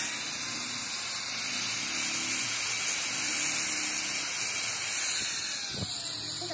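Electric angle grinder with an abrasive disc grinding the teeth of a steel helical gear: a steady grinding hiss of disc on metal, with the motor's faint hum beneath.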